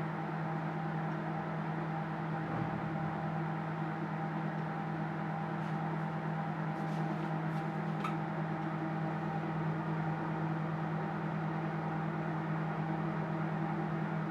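Microwave oven running with a steady low hum while it melts a bowl of chocolate. A few faint ticks come about halfway through.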